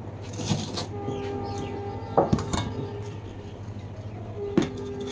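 Stainless steel bowls, plate and spoon clinking as food is served, with the sharpest clinks about two seconds in and again near the end. A steady pitched tone sounds in the background for about two seconds and returns briefly near the end, over a low steady hum.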